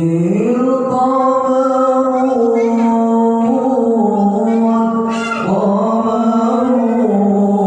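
A man singing a sholawat (Islamic devotional chant) into a microphone over a sound system, holding long, ornamented notes that bend in pitch, with a short break about five seconds in.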